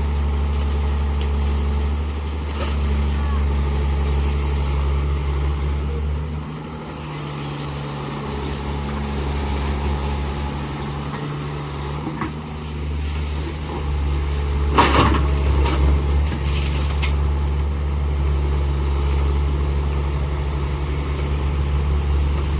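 Diesel engine of a Tata Hitachi hydraulic excavator running steadily with a low hum that eases off for a few seconds partway through. There is a brief loud burst of noise about fifteen seconds in.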